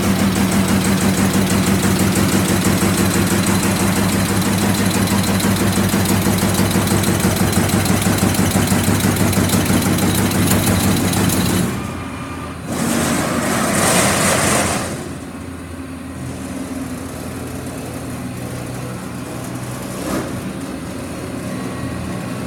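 Amada Pega 357 CNC turret punch press running, punching in a fast steady rhythm over a strong hum. About twelve seconds in the punching stops, a loud hiss follows for a couple of seconds, and the machine then runs on more quietly with a steady hum.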